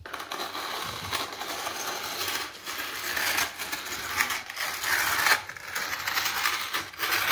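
Yellow plastic toy dump truck pushed back and forth on a concrete floor, its plastic wheels rolling and rattling, in several pushes with short breaks between them.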